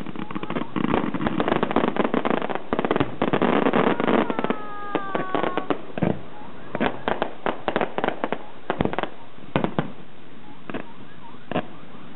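Aerial fireworks display: a dense barrage of crackling and popping shell bursts for the first few seconds, thinning after about six seconds to scattered separate bangs and pops.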